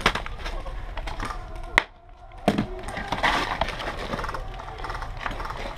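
Scuffing footsteps on gritty concrete and rustling gear as a person crouches against a stack of wooden pallets, with irregular scrapes and knocks. There is one sharp click a little under two seconds in.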